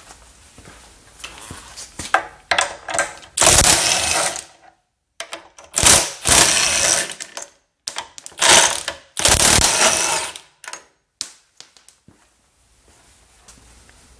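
RIDGID 18-volt brushless half-inch high-impact wrench hammering in four bursts of about a second each. Lighter clicks and rattles come between the bursts.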